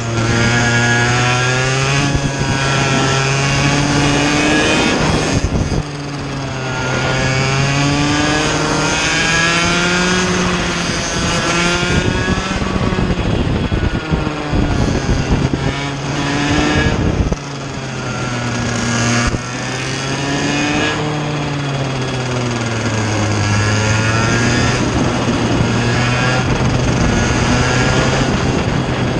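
Vortex Mini Rok 60 cc two-stroke kart engine at race pace, heard close from the kart itself: the revs climb and fall again and again as it accelerates out of corners and lifts into them, dropping sharply about six and seventeen seconds in.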